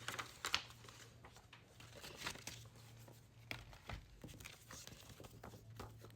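Paper crinkling and rustling from a K-pop album's pages and packaging being handled, in scattered short rustles and soft taps.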